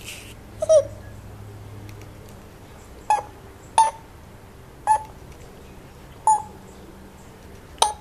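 African grey parrot giving a string of short, sharp, beep-like calls, five of them spaced about a second apart. These are preceded in the first second by a brief hiss and a single falling note.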